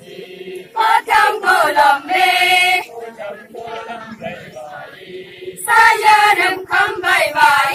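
Group of women singing a traditional Tangsa Naga dance song together, a chant-like song in two loud phrases, one about a second in and another about six seconds in, with quieter singing between.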